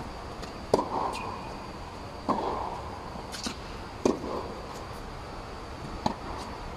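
Tennis rally on a hard court: a ball struck back and forth by rackets, with a sharp pop roughly every two seconds, four in all, each ringing on briefly in the reverberant air-supported dome.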